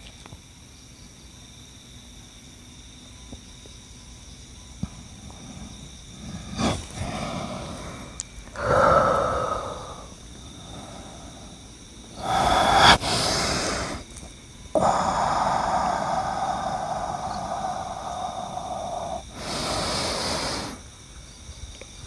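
A man's heavy, forceful breathing: quiet at first, then from about six seconds in a series of loud snorts and rasping breaths, including one long drawn-out exhale of about four seconds.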